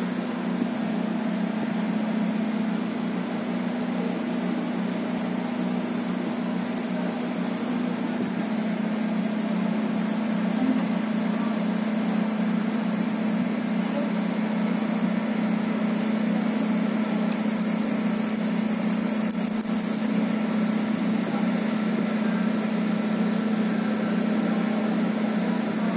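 Laser marking machine running, a steady low hum with fan noise.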